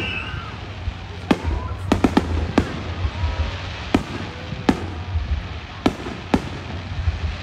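Aerial fireworks shells bursting overhead: a series of sharp bangs, about nine in all, with a quick cluster of three about two seconds in and the rest spaced roughly half a second to a second apart.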